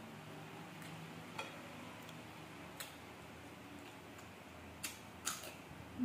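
Quiet eating sounds: about five short, sharp clicks and smacks, scattered unevenly, as a person chews and handles food at a plate.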